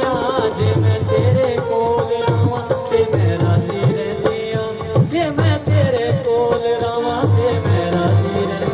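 Music with tabla-like hand-drum beats under a wavering lead melody line.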